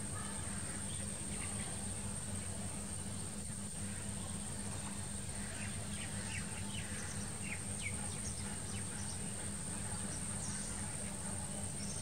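Rural pond-side ambience: a steady high-pitched insect drone over a low steady hum, with scattered short bird chirps, most of them in the middle stretch.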